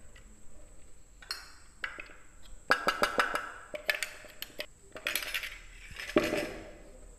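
A mixer-grinder jar knocked and shaken against the rim of a bowl to empty out ground breadcrumbs, in three bursts of rapid knocking and rattling with a few sharper hits.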